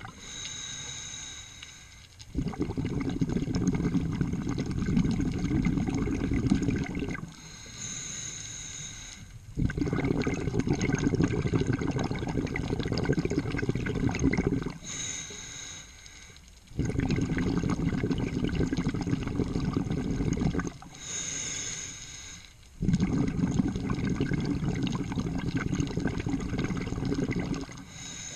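Scuba diver breathing through a regulator underwater: four breath cycles, each a short inhale through the regulator followed by a longer, louder rush of exhaled bubbles, repeating about every six to seven seconds.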